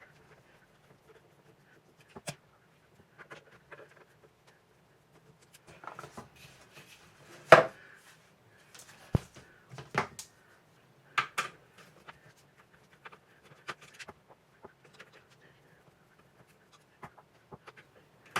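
Scattered clicks and knocks of small plastic and metal parts and tools being handled while a Daisy 880 air rifle is taken apart, with one sharper knock about seven and a half seconds in and a few more over the next few seconds.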